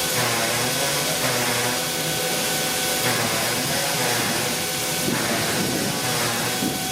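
Victorian R class 4-6-4 steam locomotive hissing steam steadily, with a steady whine running through the hiss.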